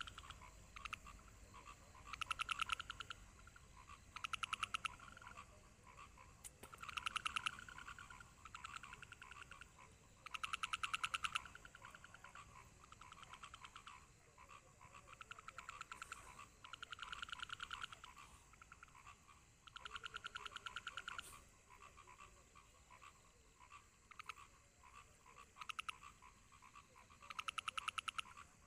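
A frog calling faintly: a croaking trill of rapid pulses about a second long, repeated every two to three seconds.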